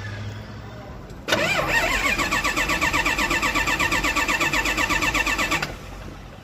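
Starter motor cranking the UD Nissan V8 diesel engine for about four seconds. It spins up with a rising whine, then holds an even rapid pulsing of about seven beats a second from the compression strokes. It stops abruptly without the engine catching.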